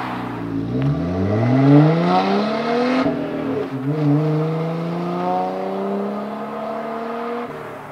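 2020 Jeep Gladiator's 3.6-litre V6 breathing through a Flowmaster American Thunder cat-back exhaust with a Super 44 muffler, accelerating hard from a standstill. The exhaust note rises, drops at an upshift about three seconds in, then climbs again in the next gear.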